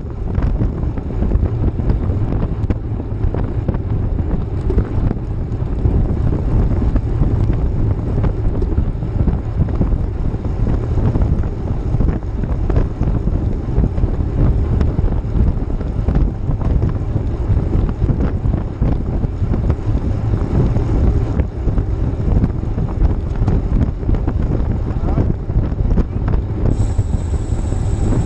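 Wind buffeting the microphone of a bicycle-mounted GoPro at riding speed: a loud, steady, low noise with no pauses. A faint, steady high tone comes in near the end.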